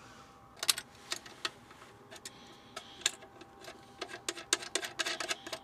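Irregular small clicks and clinks of cable ring terminals and plastic terminal caps being handled and fitted onto an inverter's DC input posts, coming thicker and faster near the end.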